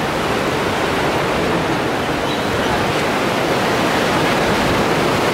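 Steady rushing noise with no separate events, swelling slightly toward the middle.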